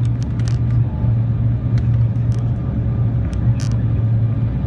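Jet airliner cabin noise heard from a window seat over the wing on approach: a loud, steady low rumble of engines and airflow, with a few scattered brief clicks.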